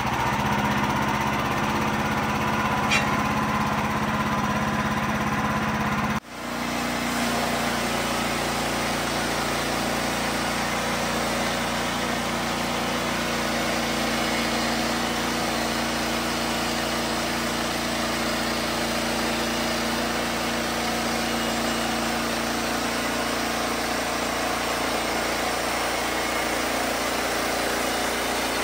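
The gasoline engine of a Wood-Mizer LX55 portable band sawmill running steadily just after starting. About six seconds in the sound drops out for an instant and comes back, the engine running on evenly.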